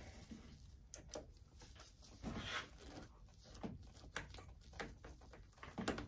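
Light, scattered clicks, taps and rustles of gloved hands fitting a motorcycle handlebar lever onto its perch, metal and plastic parts knocking together faintly.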